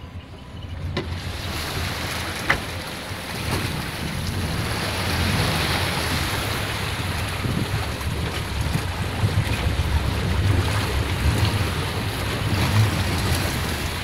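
Car driving through a deep ford: water rushing and splashing against the body over the low running of the engine, with one sharp knock early on. The water comes up high enough to flood the car.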